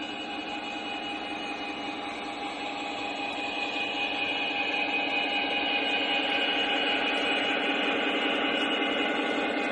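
O gauge model diesel locomotive and its freight train running on three-rail track, a steady rolling rumble with humming tones. It grows louder over the first few seconds as it comes up to and passes close by.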